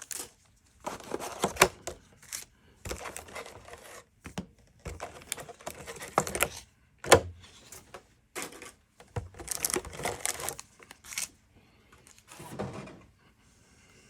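Booster pack wrappers and cardboard packaging crinkling and rustling as the packs are taken out of the box, in irregular bursts with occasional sharp clicks; one sharp click about seven seconds in is the loudest.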